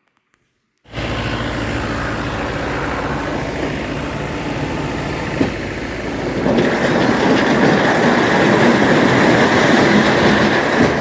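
Tipper lorry's diesel engine running while it dumps quarry boulders into a stone crusher's feed pit. About six and a half seconds in, a louder, rougher rumbling clatter builds up as the rocks slide out of the raised bed.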